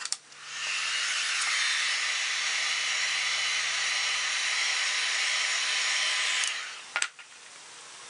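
Kobalt heat gun switched on and blowing a steady hiss of hot air onto a sheet of carbon fiber vinyl. It stops about six and a half seconds in, followed by a sharp knock.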